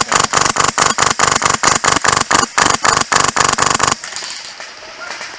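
Polarstar Fusion Engine M4 airsoft rifle firing a rapid string of shots, about five a second, that stops about four seconds in. A few fainter shots and clicks follow.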